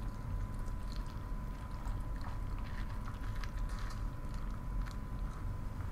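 Milk poured slowly from a mug onto a bowl of dry cereal: a faint trickle and splash with a few small ticks.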